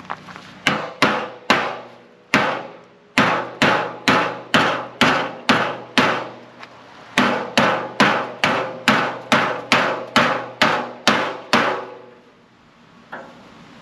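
Body hammer striking a sheet-metal car fender against a dolly: a steady run of sharp, ringing metal blows, about three a second, with two short breaks, stopping about a second before the end. The fender is being straightened where it is bent so it will line up once installed.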